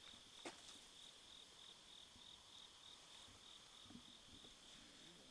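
Faint night insects chirping, most likely crickets, as one high, even pulsing trill repeating a few times a second. There is a small click about half a second in.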